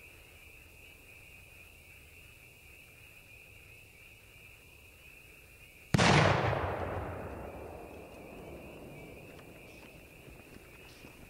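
A single very loud bang from a homemade firework about six seconds in, its echo rolling away over the next few seconds.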